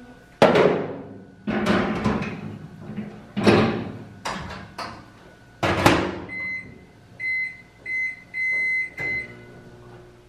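Four loud knocks, each with a ringing tail, then microwave oven keypad beeps as the cooking time is set: five short high beeps, the fourth held longer. A low steady hum starts about nine seconds in as the oven begins to run.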